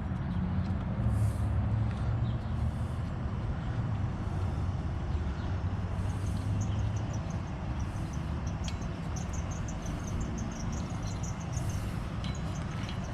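Steady low mechanical hum with a droning tone, with faint rapid high-pitched chirping over it in the second half and a few light clicks.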